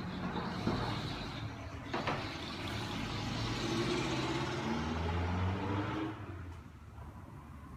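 A motor vehicle engine running, rising in pitch and getting louder, then dropping away sharply about six seconds in. Two sharp knocks in the first two seconds.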